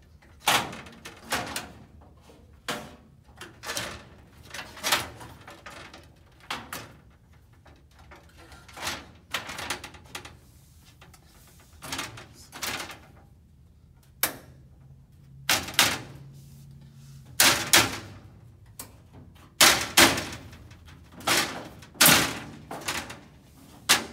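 Sliding glass showcase doors being dropped into and worked along their metal bottom track: a run of irregular knocks and clacks, louder and more frequent in the second half.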